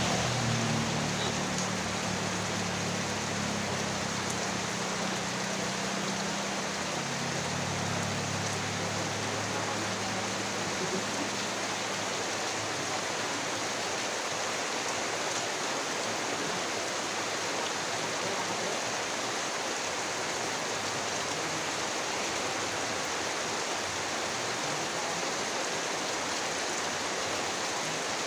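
Very heavy rain falling steadily, a dense even hiss. A low hum sits underneath for the first twelve seconds or so, then fades away.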